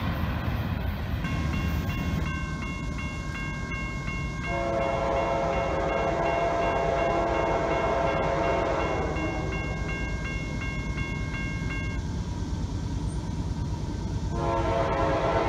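Railroad grade-crossing warning bell dinging rapidly and evenly, stopping about twelve seconds in once the gates are down. Over it a locomotive's air horn sounds one long chord about four seconds in and starts another near the end as the train approaches the crossing.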